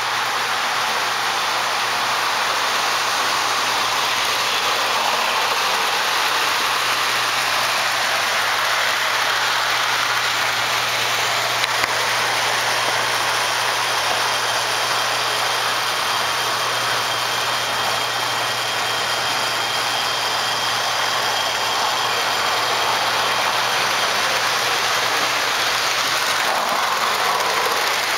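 O-gauge electric model trains running on three-rail tinplate track: a steady whirring rumble of motors and wheels on the rails, with a low hum underneath. Near the end a freight train rolls past close by.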